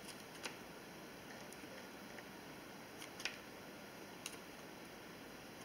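Hand pruning shears snipping through the large leaves of a hydrangea cutting: a few short, faint clicks spread over several seconds against quiet room tone.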